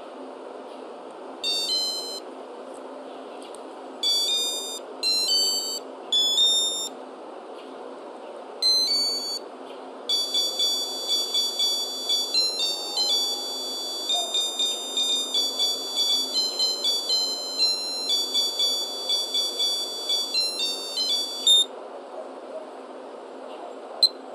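Casio Melody M-1230 digital watch's piezo buzzer playing its melody: several short phrases of high electronic notes, then from about ten seconds in a longer unbroken tune of quick notes that cuts off suddenly. One short beep follows near the end.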